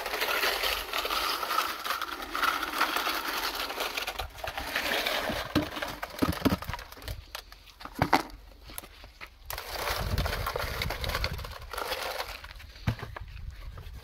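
Wet concrete mix tipped from a pan into a steel ring mould, a gritty rushing for the first four seconds or so, followed by scattered knocks against the mould.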